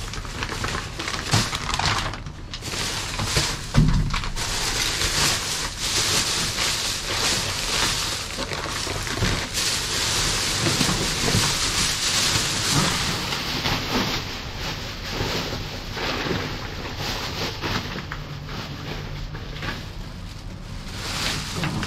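Plastic bags and packaging crinkling and rustling as a dumpster's contents are rummaged through, with scattered knocks and a louder thump about four seconds in.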